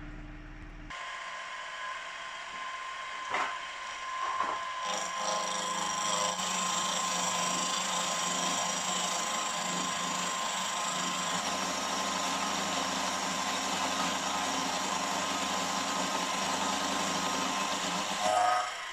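Milling machine running with a face mill taking a facing cut across a small metal casting: a steady motor hum and whine with the rough noise of the cut. It starts about a second in, gives a couple of sharp clicks around three and four seconds in, then cuts steadily, taking 55 off the face to bring the casting to size.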